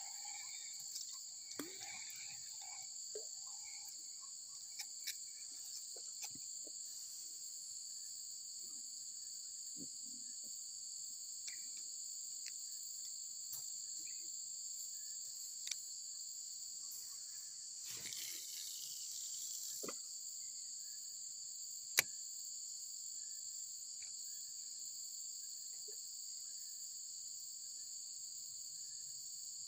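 Steady, high-pitched insect chorus, two unbroken shrill tones. A few faint clicks are scattered through it, with a brief rustling stretch past the middle and one sharp click shortly after, the loudest sound.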